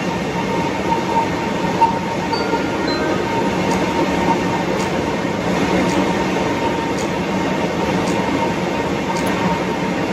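Boeing 777-200's two jet engines running steadily near take-off power during a high-power ground run, heard inside the cockpit as a constant noisy rush with a faint steady whine.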